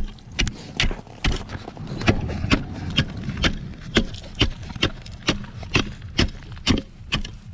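Steady chopping of ice with an ice chisel, about two sharp strikes a second, breaking open a fishing hole that has frozen over.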